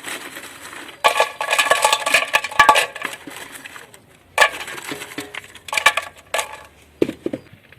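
Dry alder wood chips being tipped and spread onto the bottom of a homemade aluminium smoker, rattling against the metal in several separate bursts, with a few duller knocks near the end.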